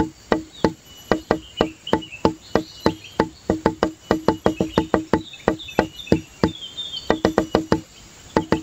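Background music of fast, evenly repeated wood-block-like percussion strikes in short rhythmic runs, with scattered high chirping over it.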